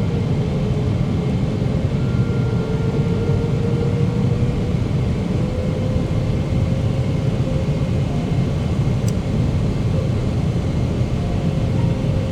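Steady cabin noise inside a Boeing 777-300ER: the deep rumble of its GE90-115B engines and the airflow past the fuselage, with a faint tone that rises slightly in pitch.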